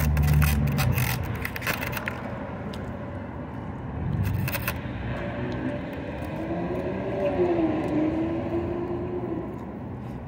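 Plastic fork scraping and clicking against a takeout food container in two bursts, near the start and about four seconds in, as food is picked up and eaten. A low wavering drone, rising and falling, runs through the second half over background traffic.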